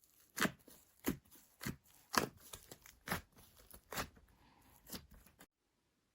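Slime being worked by hand, giving a string of crisp clicking pops about two a second that cut off abruptly about five and a half seconds in.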